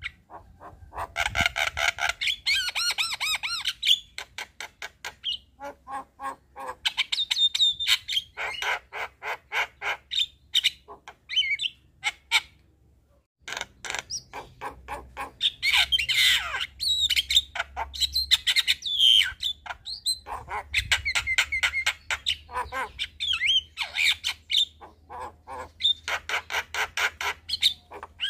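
Javan myna singing: fast, chattering runs of harsh, squawky and clicking notes mixed with short whistles, with a brief pause about halfway through.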